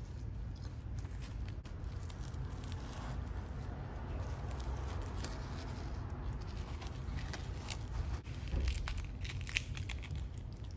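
Charred crust of a Neapolitan pizza crackling and the soft dough tearing as slices are pulled apart by hand, with a cluster of sharp crackles near the end, over a steady low rumble.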